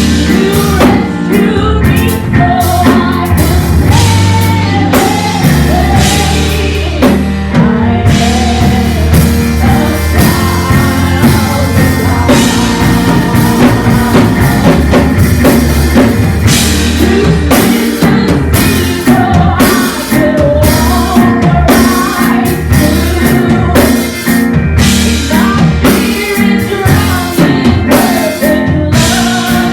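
Gospel worship music: singing over a full band with drum kit and bass, a steady beat.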